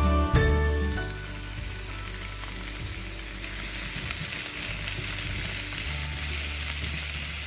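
Celery sticks sauteing in oil in a nonstick frying pan, a steady sizzle, stirred with a spatula. Background music ends within the first second.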